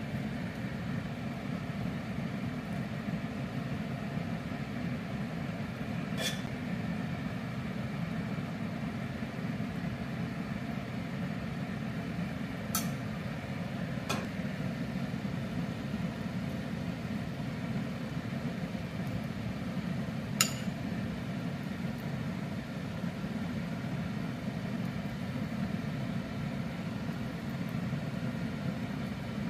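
Steady low hum with four short, sharp clinks spread through it.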